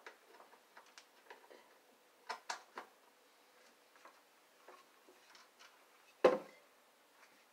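Light clicks and knocks of power plugs and cords being handled at a surge protector under a wooden desk. There are a few knocks about two and a half seconds in and one louder thump a little after six seconds.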